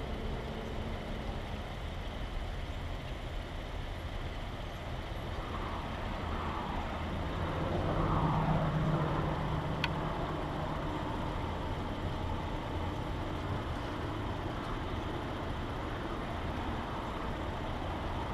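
Steady rumble of an idling car with outdoor vehicle noise, swelling louder for a couple of seconds about eight seconds in. There is a single sharp click near ten seconds.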